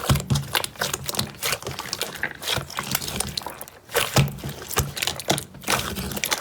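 Slime being squeezed and pressed by hand, giving a run of wet, sticky clicks and crackling pops with a few heavier squelches.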